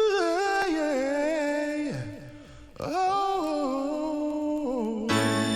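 A solo unaccompanied singing voice sings two wordless phrases of held notes that slide downward in steps, with a short break about two seconds in. Near the end, a sustained instrumental chord comes in underneath.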